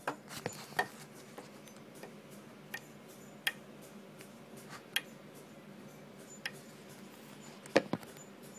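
Light, irregular clicks and taps, about ten of them, from fly-tying tools and materials being handled at the vise, over a faint steady low hum.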